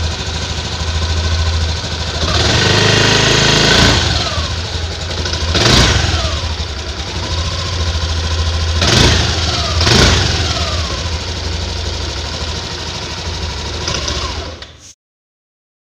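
Yamaha Aerox 155 scooter's single-cylinder four-stroke engine idling at the exhaust, revved several times. There is one longer rev about three seconds in, then three short blips, each falling back to idle. The sound cuts off suddenly near the end.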